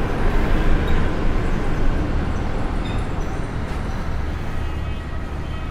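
Steady low rumble of road traffic, slowly easing off toward the end.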